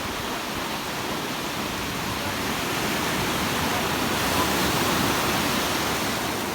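Strong ocean surf breaking and washing up the beach: a steady rush of water that swells about halfway through and then eases.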